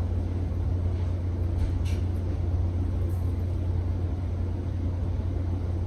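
A steady low hum, with faint brief rustles about two and three seconds in.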